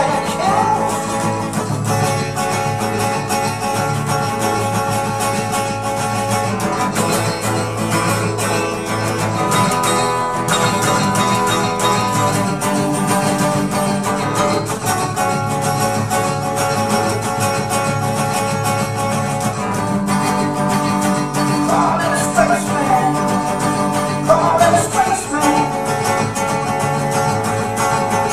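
Acoustic guitar strummed steadily through changing chords, an instrumental passage of a song.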